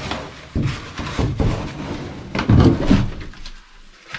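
A run of knocks and scrapes as loose boards and debris are pushed and knocked about in a small empty room, loudest about two and a half seconds in, then quieter near the end.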